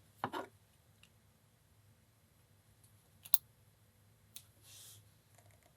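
A few sparse, faint clicks of small metal parts as a Design House pin tumbler lock is handled while being taken apart, with its core stuck in the housing. The sharpest click comes about three seconds in, followed by a brief soft scrape near the end.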